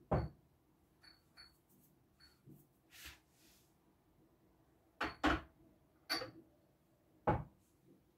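Small glass yogurt-maker jars clinking and knocking on the counter as they are handled and filled from a jug. The knocks are scattered and a few clinks ring briefly. Louder knocks come at the very start and in a cluster about five to seven seconds in.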